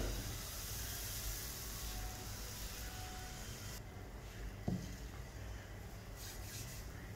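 Pancake batter sizzling as it hits a hot flat griddle pan, a steady high hiss that drops away sharply about four seconds in. A single dull knock comes shortly after.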